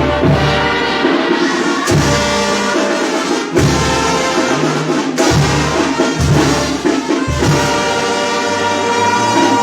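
Brass band music at full volume, with horns over a low bass line that moves note by note, and some drums.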